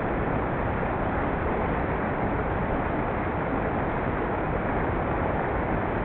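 Small woodland waterfall and stream, water pouring over a rock ledge and rushing down over rocks in a steady, unbroken roar.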